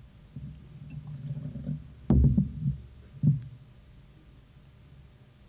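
Dull low knocks and rumbling from a water jug and glass being handled on a wooden lectern close to its microphone as water is poured. The loudest thumps come a little after two seconds in, with one more about a second later.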